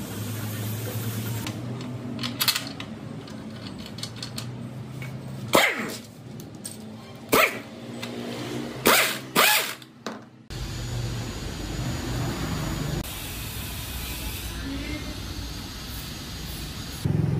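Impact wrench driving a bolt on a cut-off saw's base in several short, loud bursts, the biggest between about five and a half and nine and a half seconds in, over a steady low hum. From about ten seconds in, a steady rushing noise takes over.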